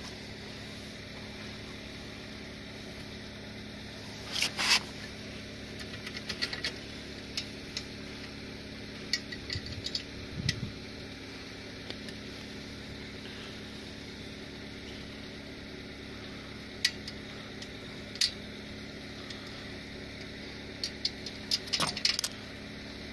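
Scattered metal clicks and clinks as a tricycle's rear wheel and its fittings are handled and fitted at the frame's rear dropout, with a cluster of knocks about four seconds in and a busier run of clicks near the end, over a steady hiss.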